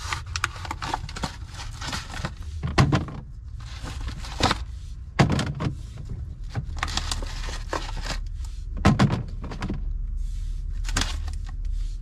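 Oranges and clear plastic fridge bins being handled: several sharp knocks and thuds of fruit against plastic, with handling noise between them.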